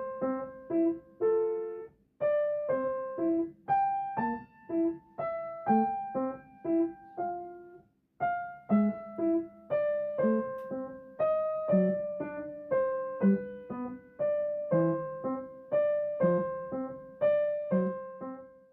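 Background piano music: a gentle melody of single notes, about two a second, with two brief pauses.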